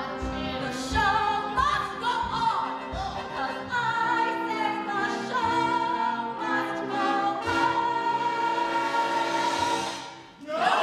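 A woman singing a show tune with orchestra in a theatre, finishing on a long held note with vibrato that stops about ten seconds in.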